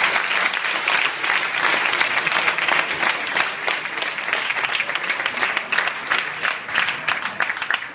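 Audience applauding: dense, steady clapping from a large crowd, thinning out near the end.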